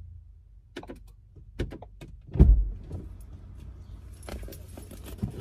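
A few sharp clicks and knocks, then one heavy thump about two and a half seconds in, followed by a bright jingle of keys from about four seconds in.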